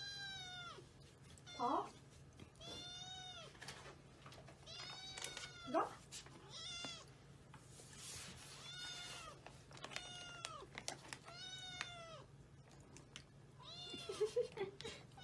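Kitten meowing over and over: about ten short, high-pitched meows, each rising then falling in pitch, one every second or so.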